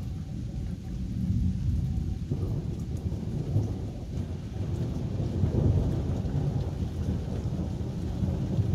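Thunder rumbling long and deep, swelling about a second in and again after two seconds, with its loudest rolls near the middle.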